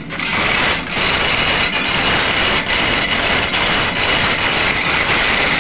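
Loud, steady engine-room noise of running machinery, with a high, even hiss over it. Faint clinks of the chain hoist come roughly once a second as the engine block is hauled up.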